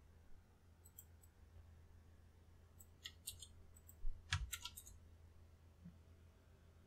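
Computer keyboard and mouse clicking: a few light clicks, a short run of key presses about three seconds in, and a louder quick flurry just after four seconds, over a faint low hum.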